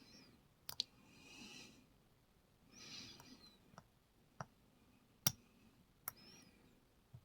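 Scattered sharp clicks of a lock pick and tension wrench working the pins of a steel shrouded padlock, about seven irregular clicks, with two soft breathy hisses between them.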